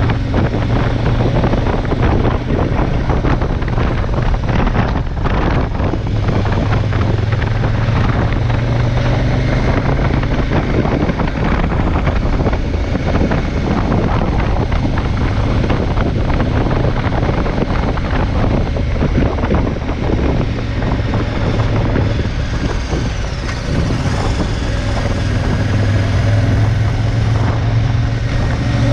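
KTM 1190 Adventure's V-twin engine running at road speed, with wind rushing over the microphone. The engine note eases off in the middle and picks up again near the end.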